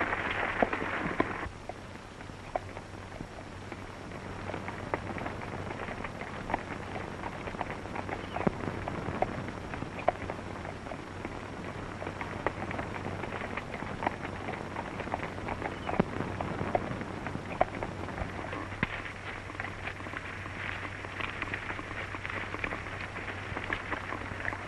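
Hooves of two horses clopping irregularly on stony ground as they walk on. Under them runs the steady hiss and low hum of an old optical film soundtrack.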